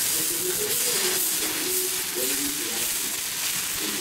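Dosa batter sizzling on a hot tawa as it is poured and spread with a ladle: a steady, even hiss.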